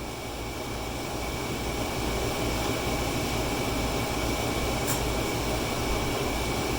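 Steady hiss and hum of air conditioners running, with a thin steady whine above it, swelling over the first couple of seconds and then holding even.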